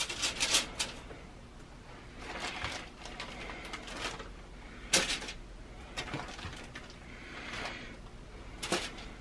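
Plastic zip-top bag rustling and crinkling as a hand reaches in for marinated chicken thighs, with soft wet handling noises and a few sharp crinkles or taps as the pieces go down on a foil-lined baking sheet.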